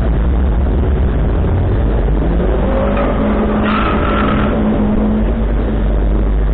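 Road vehicle engine running under way, its pitch rising from about two seconds in as it speeds up, with a brief high squeal a little past the middle.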